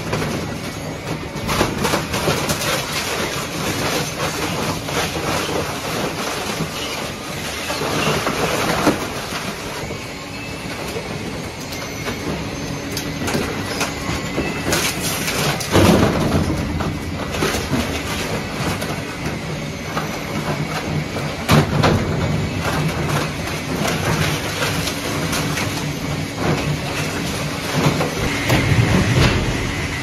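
Heavy machinery of a refrigerator recycling line running, with a shredder crunching fridge panels: a loud, steady clatter and rattle full of knocks, with heavier bangs about halfway through and near the end.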